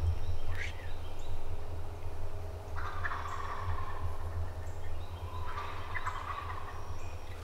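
Osceola wild turkey gobblers gobbling twice, about three seconds in and again near six seconds. Each gobble is a rapid rattling call that drops in pitch over about a second.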